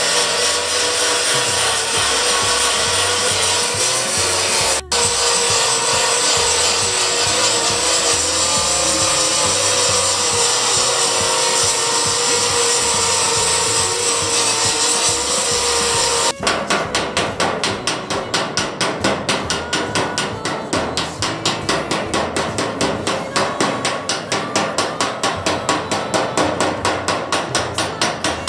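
Belt file running steadily as it grinds down a weld seam on a metal car body panel. About sixteen seconds in it gives way to rapid, even hammering on the sheet metal, about five blows a second.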